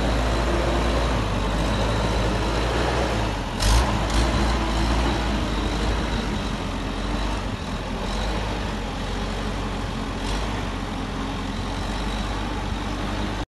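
Wolverine skid steer loader's diesel engine running steadily under work, with one sharp knock about four seconds in and a fainter click later on.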